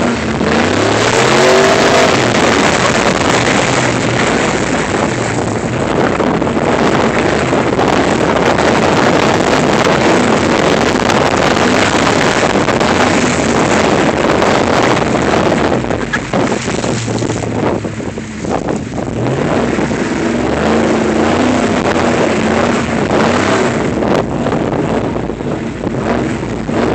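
A two-wheel-drive vehicle's engine being driven off-road, revving with its pitch rising and falling under a loud rushing noise.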